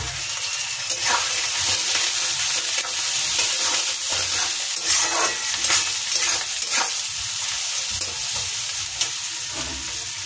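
Chopped onions sizzling in hot mustard oil in a metal kadhai, stirred with a metal spatula that scrapes and clinks against the pan at irregular moments over a steady frying hiss.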